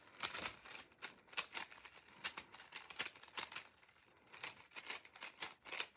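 Rubik's Cube faces being turned quickly by hand while scrambling, a run of irregular plastic clicks and clacks with a short lull about two-thirds of the way through.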